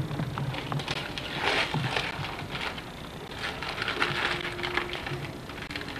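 Wrapping paper being torn and crumpled off a present by a small child's hands, in irregular crinkly bursts.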